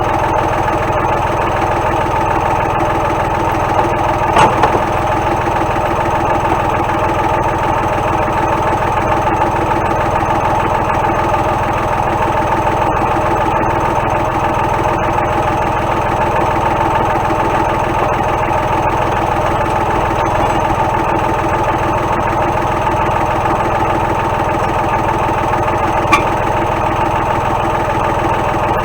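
Tractor engine running steadily at idle. There are two brief knocks, one about four seconds in and one near the end.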